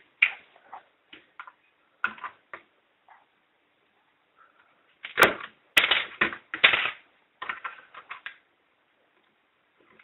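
Plastic LEGO parts clicking and clattering as the LEGO gumball machine's dispensing mechanism is worked and a gumball moves through it. The clicks come in short clusters, the loudest and densest from about five to seven seconds in.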